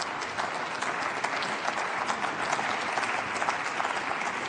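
Parliamentary applause: many people in the plenary hall clapping steadily after a speech ends.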